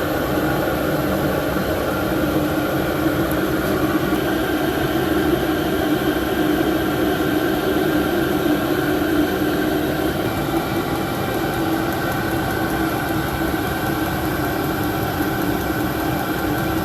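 MaXpeedingrods 5 kW 12 V diesel air heater running steadily on its low 2 kW setting: a continuous fan noise with a steady hum.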